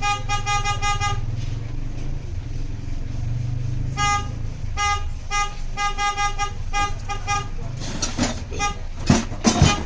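A car sounding a rapid, high-pitched beeping in quick pulses: a burst of about a second at the start and a longer run of about three seconds from four seconds in, over a steady low hum. Raised voices come in near the end.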